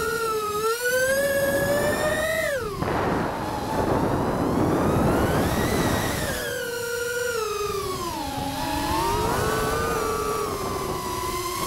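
FPV quadcopter's motors whining, the pitch rising and falling with the throttle. About three seconds in, the whine drops away and a rushing noise takes over. The whine picks up again a few seconds later and dips once more near the end.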